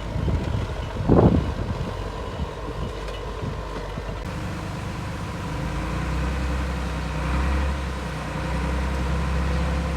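Heavy diesel earthmoving machinery running under load, with one loud knock about a second in. The engine drone turns deeper and steadier about four seconds in.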